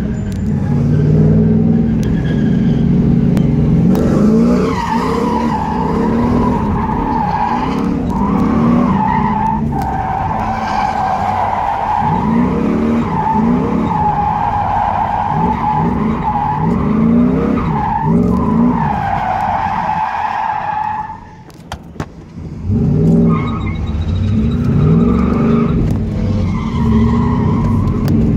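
Pontiac Trans Am's LT1 5.7-litre V8, breathing through longtube headers, a catless Y-pipe and Hooker Aerochamber mufflers, revving up and down hard while the tyres squeal through drifts, heard from inside the cabin. Engine and tyre noise drop away briefly about 21 seconds in, then the revving and squealing resume.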